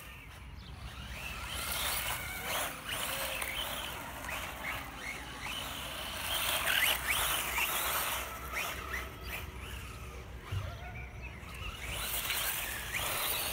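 ZD Racing Raptors BX-16 1/16-scale RC buggy with a 2435 3300KV brushless motor, driven over gravelly asphalt: the motor whine rises and falls again and again with the throttle, over the hiss of tyres on grit.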